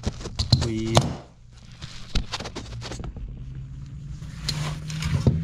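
Clinks, knocks and scrapes of a steel hand-lever sheet-metal punch and a thin steel sheet being handled and fitted together on a wooden workbench, with a brief squeak about a second in. A steady low hum sits underneath.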